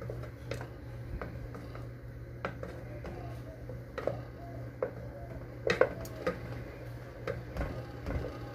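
Wooden spoon stirring thick mashed potato in a metal pot, with irregular knocks and scrapes of the spoon against the pot, the loudest about six seconds in. A steady low hum runs underneath.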